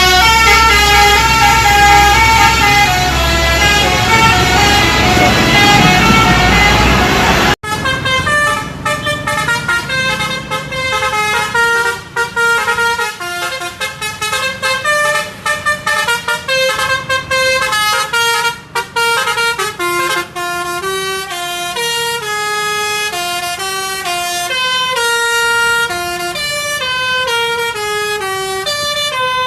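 Bus 'telolet basuri' musical horn playing a fast melody of stepping, reedy tones. A heavy low rumble lies under it until an abrupt cut about seven seconds in, after which another horn tune carries on with little else behind it.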